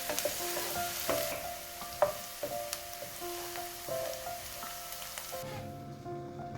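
Food sizzling in hot oil in a frying pan, with a few sharp clicks of a utensil against the pan, the loudest about two seconds in. The sizzle cuts off abruptly near the end.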